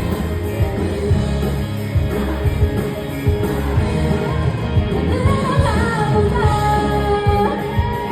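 Live rock band playing a song: singing over electric guitar, bass and drums with a steady beat. The sung melody stands out more clearly in the second half.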